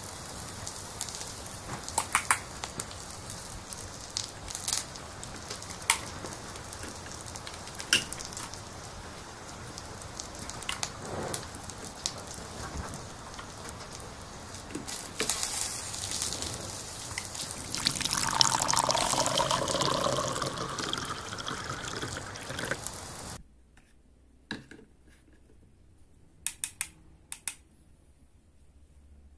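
A steady sizzling hiss from a steaming toy cooking pot, with light plastic clicks and knocks as toy food pieces are handled in it. The hiss swells louder for a few seconds, then cuts off suddenly about 23 seconds in, leaving only a few soft plastic clicks.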